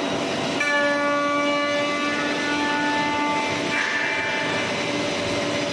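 Five-axis CNC router spindle running and its cutter machining the edge of a curved wooden workpiece: a steady mechanical whine. From about half a second in, a higher whine of several tones joins as the cut loads up, then fades out by about four seconds in.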